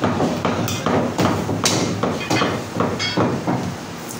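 Heavy meat cleaver chopping a piece of mutton on a round wooden log block: about ten sharp chops, two to three a second, stopping about three and a half seconds in.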